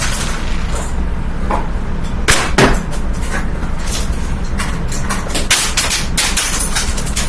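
Amazon Basics box fan running with a steady low drone while Lego pieces dropped into it are hit by the spinning blades and clatter against the fan. Two loud knocks come about two and a half seconds in, then a run of quick ticks and rattles.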